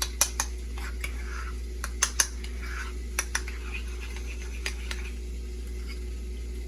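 A spoon stirring dill mayonnaise in a bowl: irregular sharp clinks against the bowl with soft scraping between them, over a steady low hum.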